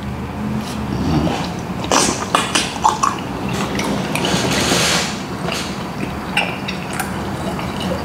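Close-miked wet chewing and mouth smacks of soft, slow-cooked oxtail meat: a run of short, irregular smacks and clicks.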